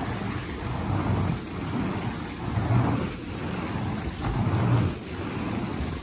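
Motorized carpet-cleaning machine running over carpet in regular back-and-forth strokes, its airflow and motor noise swelling with each stroke about every two seconds.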